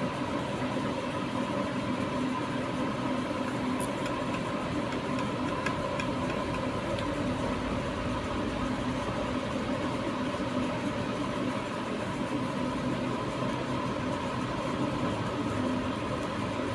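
Steady rumbling hum and hiss from a speaker driven by a small add-on amplifier board fitted in place of a Sony home theatre's failed amplifier IC: the replacement board is now producing audio.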